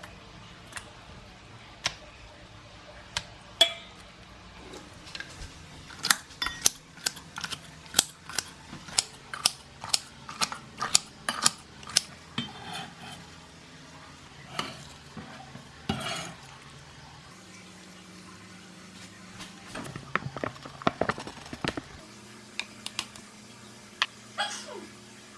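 Utensils clinking and tapping against dishes and pans in a kitchen: a few scattered clinks, then a quick run of sharp clinks for several seconds, and a few more after a pause.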